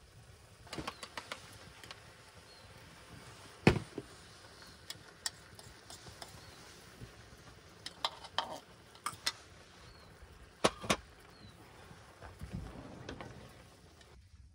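Scattered clicks and knocks in small clusters, the loudest a single sharp knock about four seconds in, with a few faint, short bird chirps.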